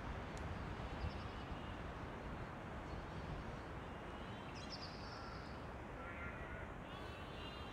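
Scattered calls from a large flock of bramblings: short, rapidly pulsed calls come at intervals, about a second in, again around four to five seconds in, and several more near the end, over a steady low rumble.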